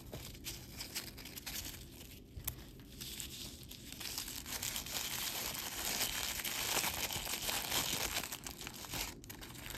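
Packing wrap crinkling and rustling in the hands as a piece of jewelry is unwrapped, sparse at first and then denser and louder for several seconds near the middle and end.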